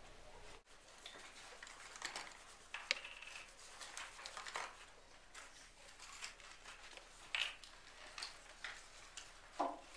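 Quiet classroom background with scattered light clicks and knocks, like small objects being handled.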